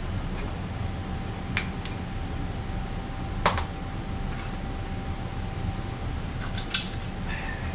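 About seven short, sharp clicks and taps of hand tools and small metal parts being handled during reassembly, the loudest about halfway and near the end, over a steady low hum.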